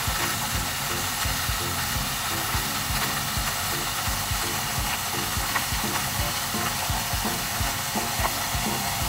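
Chicken breasts sizzling in sesame oil in a cast-iron pot: a steady frying hiss, with a regular low pulse underneath.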